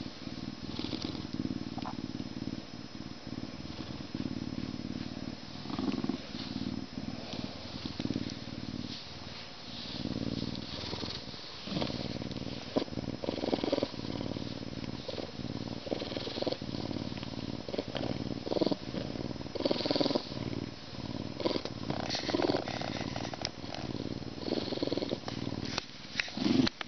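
Lynx purring, a deep rumbling purr that carries on without a break while its fur is rubbed. Frequent rustling and scratching of hands working through its thick fur sounds over the purr.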